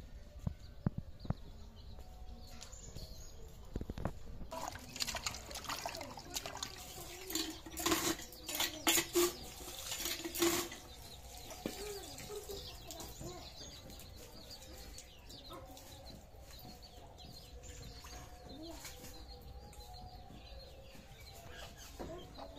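A few light knocks, then water from a hand pump splashing into a metal bowl for several seconds, followed by softer sloshing as cut eggplant pieces are rinsed by hand in the water.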